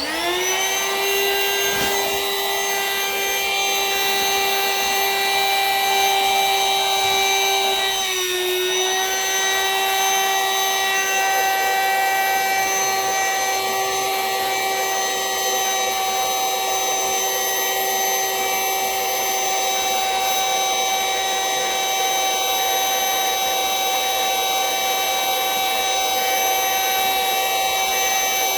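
Vacuum cleaner switched on, its motor whining quickly up to speed and then running steadily as it draws air out of a vacuum storage bag of plush toys. About eight seconds in, its pitch dips briefly under load and then recovers.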